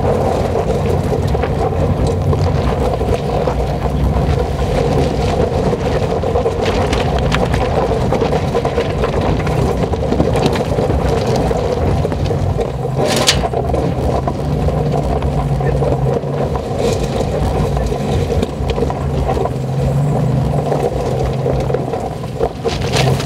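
2020 Toyota 4Runner TRD Pro's 4.0-litre V6 running steadily at crawling speed over loose gravel and rocks, with tyres crunching on stones. A single sharp crack stands out about thirteen seconds in.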